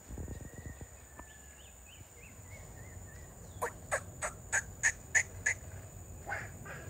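A bird calling: a run of seven short, sharp calls at about three a second, a little past halfway, then two fainter ones. Faint high chirps come before them.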